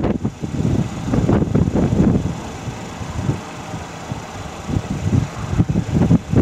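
Low, uneven rumbling with wind buffeting the microphone, easing off in the middle and building again near the end.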